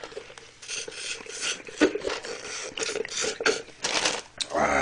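A string of short scraping and rustling handling sounds as food, cups and packaging are moved about on a table.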